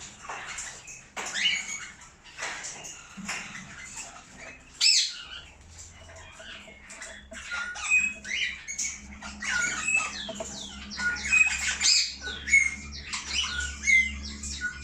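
Cockatiels squawking and chirping in repeated short, sharp calls, growing busier and louder over the second half.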